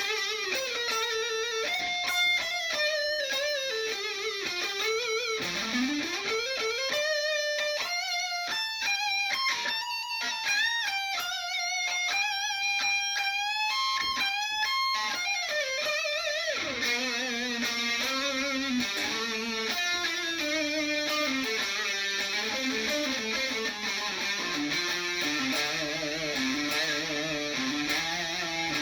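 Epiphone SG Modern electric guitar played through an amp on its neck pickup: single-note lead lines with a long slide up about five seconds in and notes held with vibrato, then a run of lower notes in the second half.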